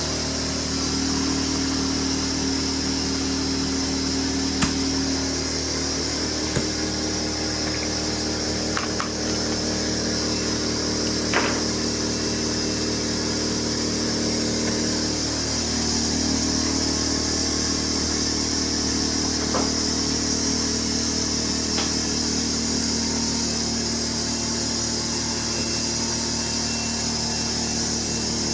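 A small motor running steadily for the whole stretch, its hum shifting in pitch slightly a couple of times, with a few light clicks or taps.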